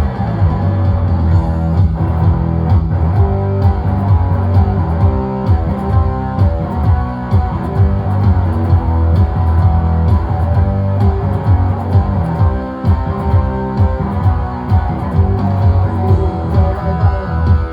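Instrumental rock music: guitars and a prominent bass guitar over a steady, regular drum beat, with no vocals.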